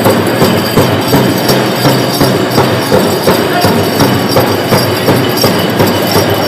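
Powwow drum and singers: a big drum struck in a steady beat about twice a second under voices singing.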